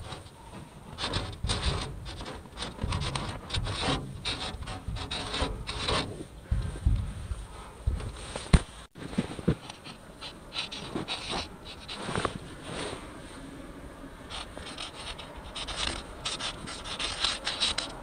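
Felt-tip permanent marker scratching across a rough wall in quick repeated strokes as a tag is written. First it is on cracked painted wall; after a short break about halfway through, it is on porous concrete.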